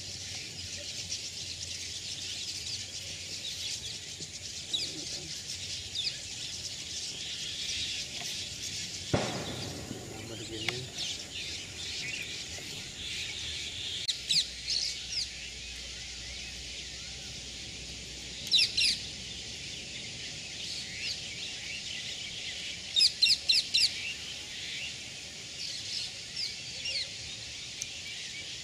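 A large flock of small birds calling together in a dense, steady chatter, with louder sharp chirps standing out in quick runs of two to five. A single knock sounds about nine seconds in.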